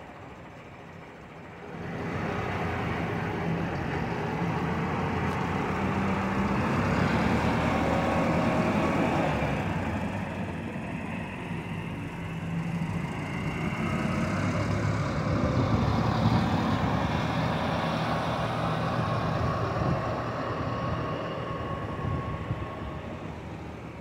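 A vehicle's engine running, coming in suddenly about two seconds in and staying loud with uneven rises and falls.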